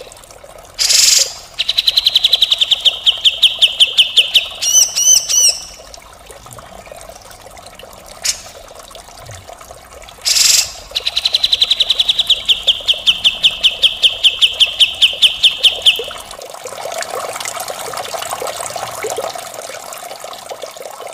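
Cucak jenggot (grey-cheeked bulbul) singing: two long, fast trills of evenly repeated high notes, about ten a second, each opened by a harsh rasping burst. Fainter, rougher chatter follows near the end.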